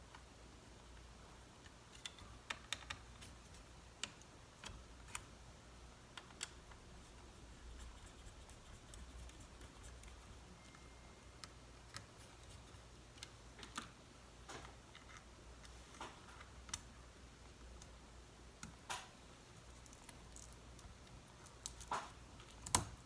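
Light clicks and taps from hands working on a MacBook Pro laptop, coming irregularly a second or two apart, with a louder pair near the end.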